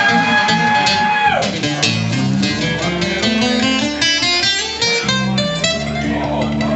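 Live country music with guitar played as an instrumental passage. In the first second or so a long note slides up, holds and drops away, then quick picked notes follow over a steady bass line.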